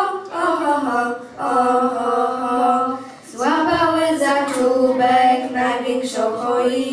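Three girls singing a Polish Christmas pastorałka a cappella, in long held notes, with a brief breath pause about three seconds in.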